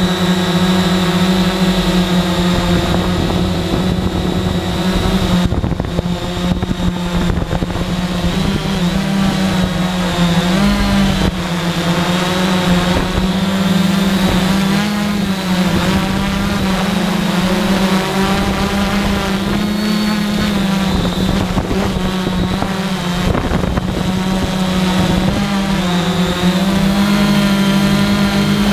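A multirotor drone's motors and propellers running: a steady hum with a stack of higher tones whose pitch wavers up and down through the middle and settles again near the end.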